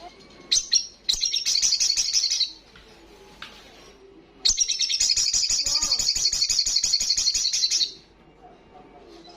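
Sogon (sogok ontong, little spiderhunter) singing loudly. A couple of sharp high notes are followed by a fast, high chattering trill of about a second and a half, then a longer trill of about three and a half seconds.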